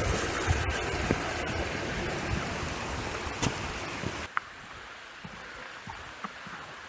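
Rushing water of a moorland brook, a steady hiss that drops suddenly to a quieter level about four seconds in.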